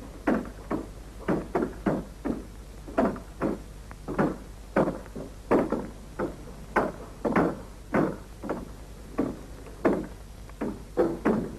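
A steady run of short knocks, about two to three a second and unevenly accented, over a low steady hum.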